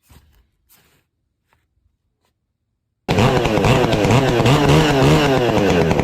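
A two-stroke chainsaw starts up suddenly about three seconds in, running loud with its engine pitch rising and falling repeatedly as it is revved. Before it there is near silence with a few faint clicks.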